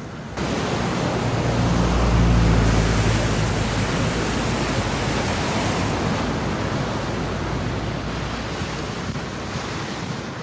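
Rushing floodwater of a swollen river, a loud steady roar that comes up abruptly about half a second in. A deep rumble sits under it for the first few seconds, then the roar eases slightly.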